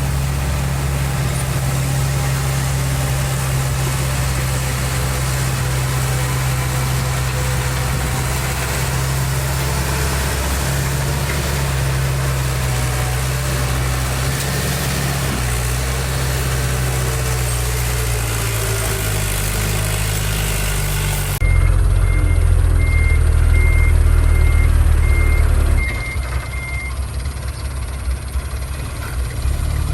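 Heavy diesel construction machinery running steadily. Past the middle the sound changes abruptly to a louder, deeper engine, and a reversing alarm beeps at an even pace for about five seconds before the engine settles lower.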